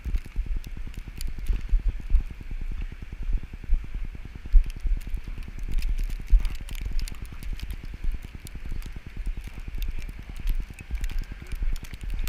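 Blizzard wind buffeting a GoPro's microphone: a fluttering low rumble with scattered crackles and ticks.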